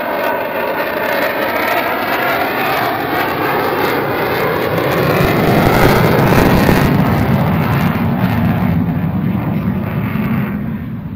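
Jet aircraft passing overhead. Its engine noise swells to a loud peak about six seconds in, then fades near the end.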